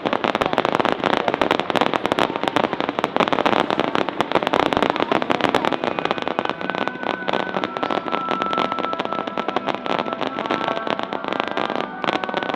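Fireworks crackling in a dense, rapid stream of sharp pops. About halfway through, steady held musical tones come in underneath.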